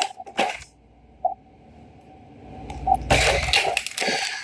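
Plastic toy packaging being handled and pulled open: crinkling and crackling, a short spell at the start and a longer, louder one in the last second and a half.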